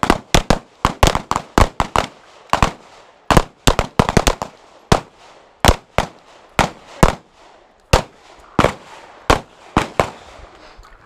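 Pistol fire from a line of shooters: about thirty sharp shots from a Glock 17 close to the microphone and other handguns, irregularly spaced and sometimes in quick strings, thinning out near the end.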